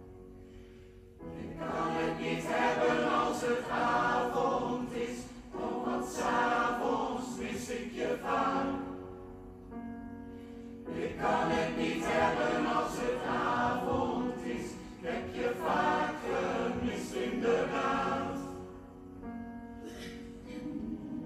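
Mixed pop choir singing in harmony with piano accompaniment, in two long loud phrases, dropping back briefly about halfway through and growing softer near the end.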